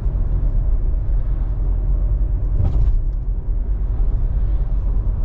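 Steady low road rumble of a moving car heard from inside the cabin, engine and tyre noise, with one brief sharper sound about two and a half seconds in.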